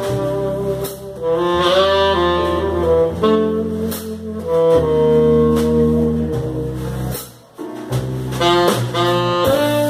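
Live jazz: a saxophone plays the melody in long held and moving notes over walking double bass, drums and keyboard, with a short break in the phrase about seven seconds in.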